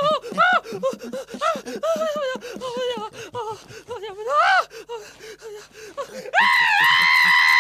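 A cartoon dog's rapid, breathy vocalising: short gasping yelps, about four a second, each rising and falling in pitch. A single longer rising-falling call follows. Near the end comes a long, loud, high-pitched shriek from a cartoon woman.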